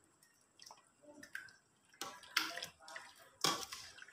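A ladle stirring thick beef rendang sauce in a rice cooker's inner pot: irregular wet squelches and scrapes, with one louder stroke near the end.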